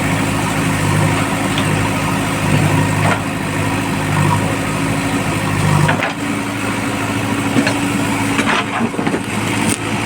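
JCB backhoe loader's diesel engine running steadily, its note shifting about six seconds in, with a few short knocks over the top.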